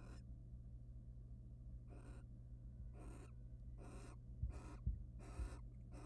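Barn owl giving a series of short hissing calls, about six, coming closer together. A few low thuds come partway through, over a steady electrical hum.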